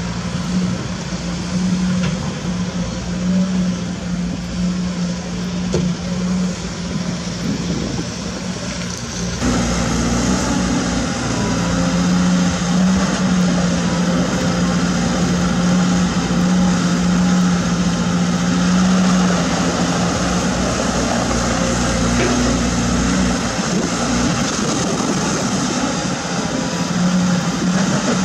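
Caterpillar 320D2 GC excavator's diesel engine running steadily under digging load, a constant low hum with its hydraulics working. About nine and a half seconds in it becomes louder and noisier.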